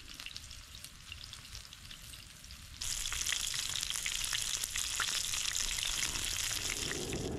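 Fish fillets coated in Louisiana fish fry sizzling and crackling in hot oil in a skillet. The sizzle turns much louder and brighter about three seconds in.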